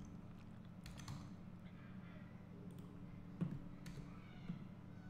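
Faint computer keyboard and mouse clicks, a few scattered taps, over a steady low hum.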